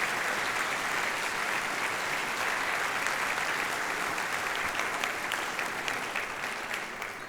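Audience applauding steadily in a hall, thinning out to scattered claps near the end.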